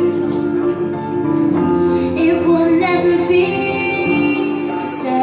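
A female singer singing over sustained instrumental accompaniment, holding a wavering note through the middle.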